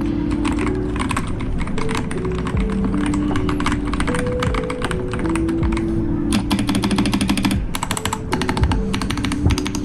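Fast, continuous typing on an Ajazz AK820 gasket-mounted 75% mechanical keyboard with factory-lubed switches, its keystrokes deep in tone. The typing gets denser in the second half, and soft background music plays under it.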